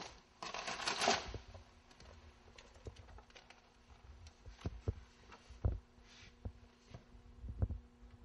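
Paper and a spiral-bound book being handled: a loud rustle of sheets about half a second to a second in, then scattered light taps and soft thumps as pages are leafed through, over a faint steady hum.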